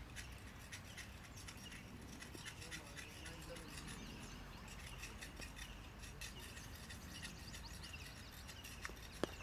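Faint outdoor background through most of it, then a single sharp crack near the end: a cricket bat striking the ball as the batsman plays the delivery.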